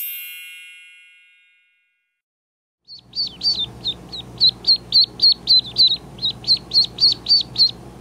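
A bright chime rings and fades over about a second and a half. After a short silence, ducklings start peeping rapidly, about four sharp falling peeps a second.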